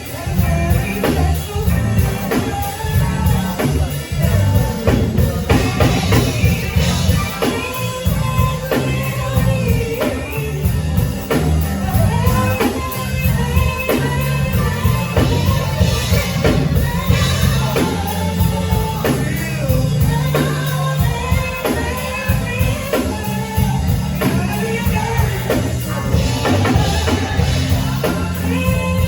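A singer performing with a band: drum kit keeping a steady beat under a heavy bass line, the voice carrying the melody throughout.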